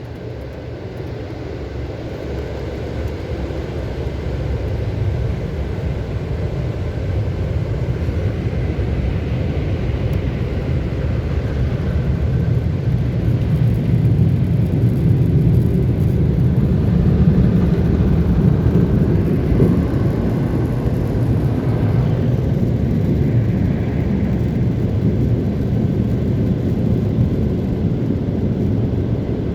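Car wash dryer blowers heard from inside the car: a loud, steady rush of air that swells over the first fifteen seconds or so and then holds.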